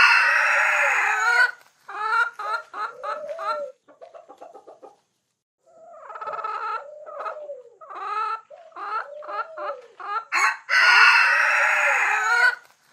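Hens clucking in a quick, repeated run while a rooster crows twice, once at the start and again near the end; the crows are the loudest sounds. There is a short lull around the middle.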